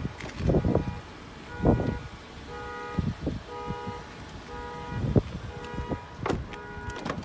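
2020 Toyota Corolla's door-open warning chime beeping over and over, roughly once a second, while the driver's door stands open. Low scuffs and knocks of handling and footsteps come and go in between.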